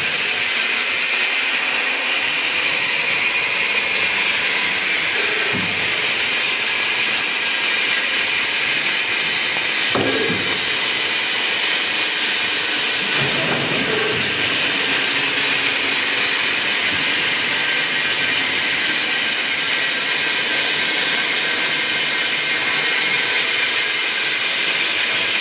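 Drawer-slide guide roll forming machine running with its hydraulic power unit: a steady mechanical whirr with several steady high tones. A single knock about ten seconds in.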